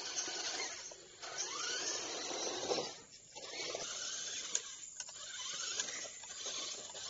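Small electric motors of toy RC 4x4 trucks whining as they drive over gravel, with a brief rise and fall in pitch about a second in.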